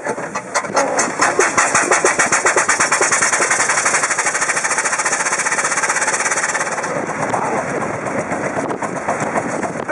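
1909 Stanley Steamer Model R steam car pulling away hard, its steam exhaust chuffing in quick, even beats that speed up as it accelerates, like a train. The chuffing eases off about seven seconds in.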